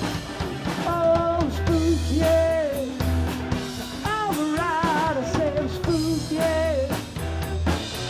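Live band playing: a drum kit keeps the beat under a bending lead melody line that wobbles with vibrato about halfway through.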